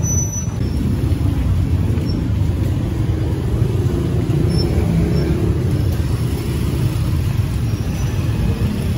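Street traffic noise: a steady low rumble of motor vehicles such as motorcycles and tricycles.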